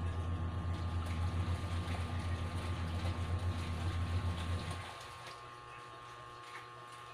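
A motor running with a steady low hum, which stops about five seconds in.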